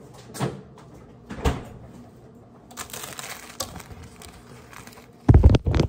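Handling and kitchen noises: a few light knocks and some rustling, then a quick run of heavy, dull bumps near the end, typical of a phone being picked up and moved against the microphone.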